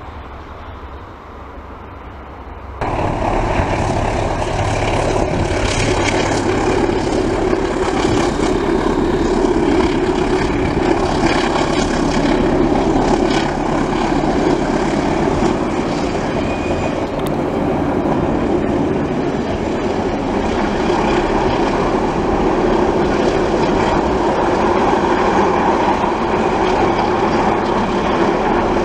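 A train is heard at a distance for the first three seconds. Then the sound jumps louder to a diesel-electric locomotive and its passenger coaches passing close by: steady engine running with the rumble of wheels on the rails.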